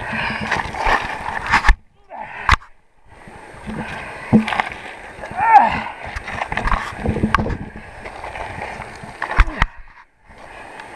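Rubbing and knocking from a handheld camera being jostled and turned about, with many sharp knocks and a few sudden dropouts. Moving river water sloshes beneath it.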